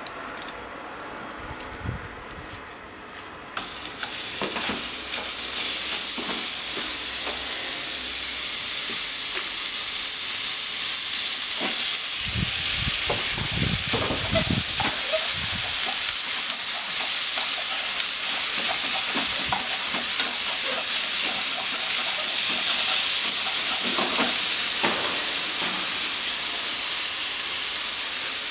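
Minced chicken frying in a hot nonstick frying pan: a loud, steady sizzle starts suddenly about three and a half seconds in as the meat goes into the pan, and carries on while it is stirred and broken up with cooking chopsticks, with a few knocks against the pan around the middle.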